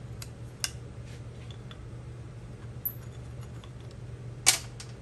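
Scattered light clicks and taps of tools and small engine parts being handled, with one sharper clack about four and a half seconds in, over a steady low hum.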